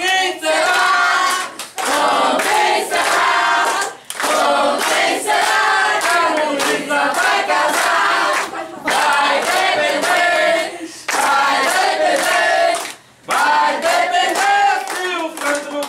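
A group of family members singing a birthday song together in Portuguese, clapping along.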